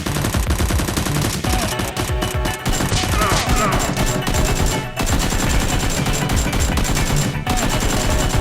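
Sustained rapid automatic gunfire sound effects, many shots a second, with music underneath and brief pauses about five and seven seconds in.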